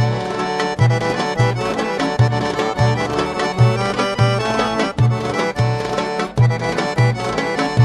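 Instrumental music with a steady, regular bass beat.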